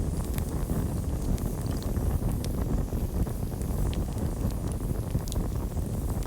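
Campfire burning: a steady low rush of flames with a few sharp, scattered crackles and pops of burning wood.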